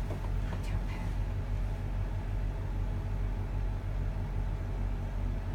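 Steady low mechanical hum with a faint rumble underneath.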